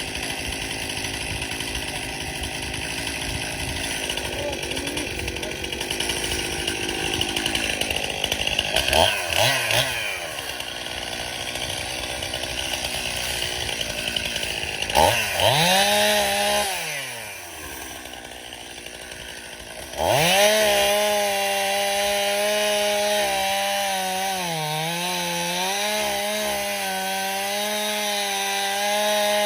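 Stihl two-stroke chainsaw cutting wood. It revs up and drops back twice, then snaps to a steady high rev about two-thirds of the way in and holds it through the cut, with a brief dip in revs as the chain bites.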